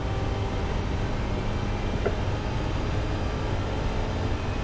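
Race car engine running steadily at speed along a straight, heard from inside the stripped cabin, with a heavy low drone of engine, road and wind noise.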